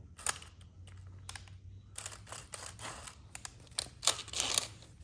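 Drill bit cutting into a damaged bolt hole to drill it out for a coil thread insert, with short, irregular bursts of scraping and clicks, the longest near the end.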